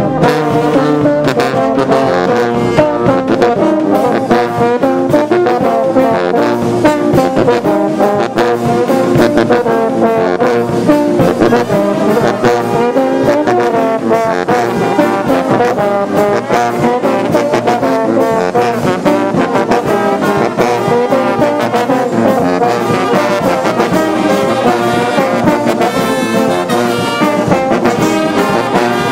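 Brass band with sousaphones and other brass horns playing a tune together, steady and loud.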